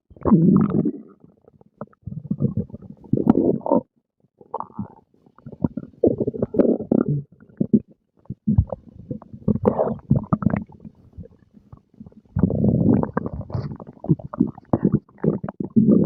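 A person's stomach growling and gurgling as it digests a meal: irregular bursts of low rumbles and bubbly gurgles with short pauses between them.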